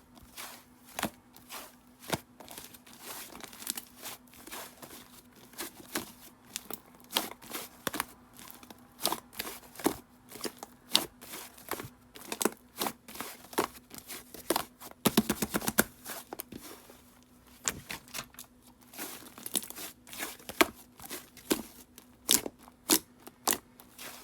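Fluffy white clay slime being squished and poked by hand, giving irregular sharp clicks, pops and crinkly tearing sounds, with a quick run of rapid pops about fifteen seconds in.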